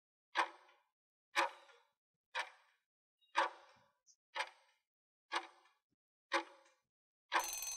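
Clock-style ticking of a quiz countdown timer sound effect, one crisp tick a second. A louder, denser sound cuts in just before the end as the countdown runs out.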